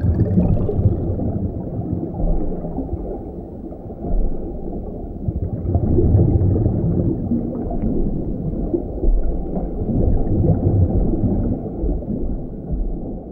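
Low, muffled rumbling and gurgling sound, with dull low thumps every couple of seconds.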